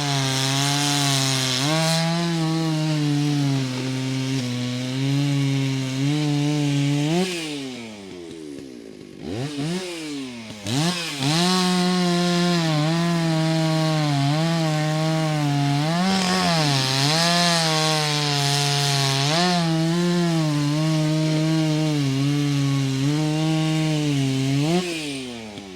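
Two-stroke chainsaw running at full throttle through wood, its pitch dipping each time it loads in the cut and rising again as it frees up. About a third of the way in it drops back to idle, then revs up and cuts again, and near the end it drops off.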